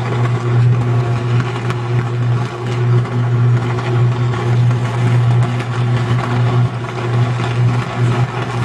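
Shorting substation transformer arcing steadily: a loud, continuous low electrical buzz with crackling over it, the sound of a sustained high-voltage fault arc.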